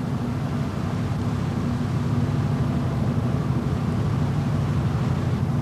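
Steady low hum of ship's machinery running on deck, even in level, with no knocks or clanks standing out.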